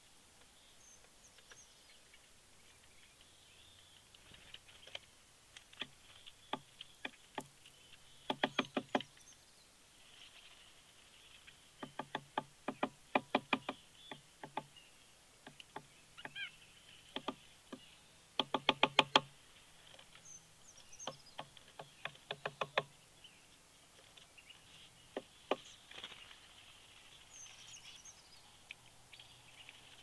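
Small birds pecking at the dry sticks of a large nest: sharp taps, some single and some in quick runs of about ten a second, the loudest run a little past the middle, with faint high chirps in between.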